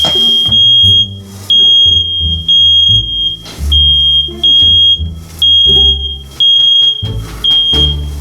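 Household smoke alarm going off, set off by smoke from chicken burning in a pan: a shrill, single-pitched beep repeating in short pulses, about one to two a second.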